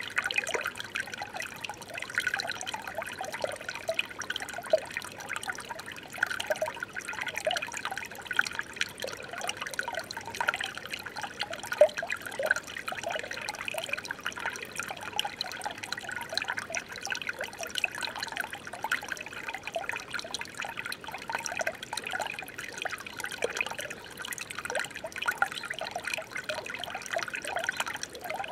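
Shallow flowing water trickling and babbling steadily, with many small bubbling plinks and no pause.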